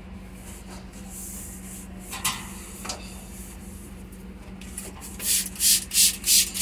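Hand trigger spray bottle squirted: two single squirts a couple of seconds in, then a quick run of about four squirts near the end. A steady low hum runs underneath.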